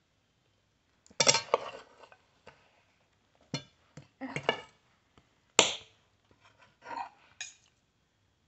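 Metal fork and knife clinking and scraping against a plate in scattered clinks: a cluster about a second in, more around four seconds, and a sharp clink after five seconds.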